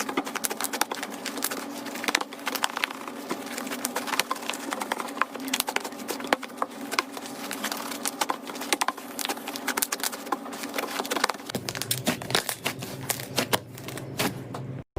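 Slime being squeezed and pressed, giving a dense run of small crackles and pops that cuts off suddenly near the end.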